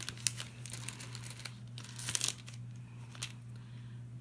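Plastic candy wrapper of a Skittles pack crinkling as it is handled, in irregular crackles with a louder flurry about two seconds in. A steady low hum runs underneath.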